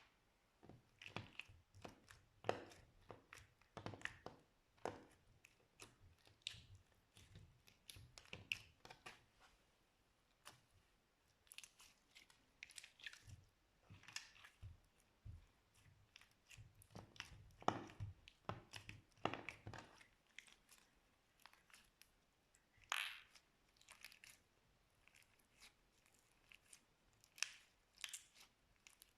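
Slime being squeezed and pressed by hand, giving irregular sticky crackles and small pops, denser at first and sparser near the end.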